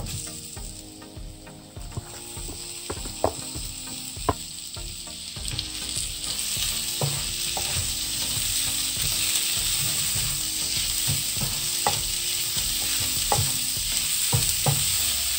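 Soya chunks and spring onions frying in oil in a non-stick pan, the sizzle growing louder about six seconds in, while a wooden spatula stirs them with scattered scrapes and knocks against the pan.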